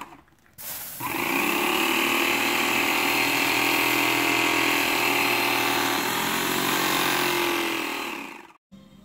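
Airless paint sprayer's pump motor running steadily while stain is sprayed. It is silent for the first second, starts about a second in, and stops near the end.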